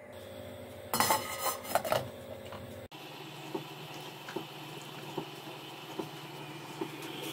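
Cooking pot of pine shoots and water on the stove: a few metal clinks of pot and lid in the first two seconds, then a steady low hum with a faint tick about once a second as it heats.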